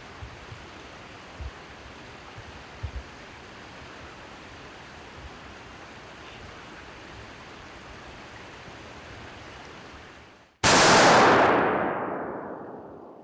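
A muzzleloader rifle fires a single shot about ten and a half seconds in: a sudden, very loud blast that rolls away over about two seconds. Before it there is only a steady outdoor hiss with a few soft low thumps.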